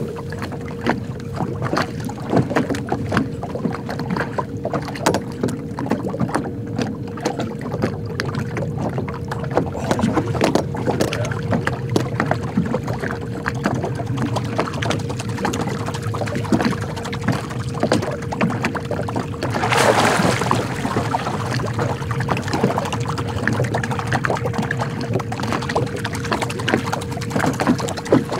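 Electric trolling motor on a fishing boat running with a steady whine, while small waves lap and slap against the hull. About two-thirds of the way through comes a brief rushing, splashing noise.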